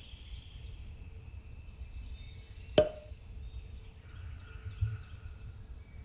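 Woodland ambience with faint birdsong over a low rumble, broken about three seconds in by a single sharp knock, with a smaller dull thump near the end.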